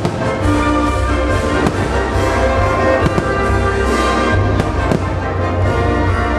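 Fireworks shells bursting in several sharp bangs over a loud orchestral show soundtrack of patriotic music with brass.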